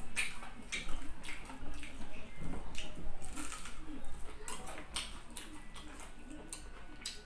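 Close-up chewing of crunchy fried chicken: irregular crisp crunches and wet mouth smacks, several a second.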